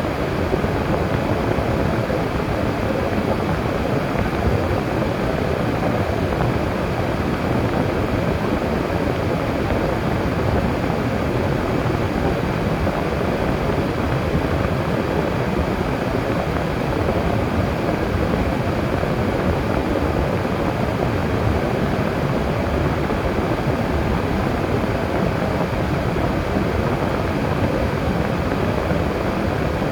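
Steady road noise of a car driving: tyre and engine noise with no changes in pace.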